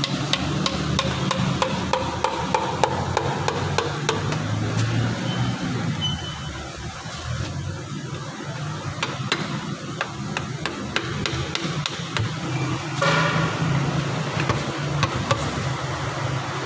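Repeated sharp knocks, irregularly spaced, over a steady low hum.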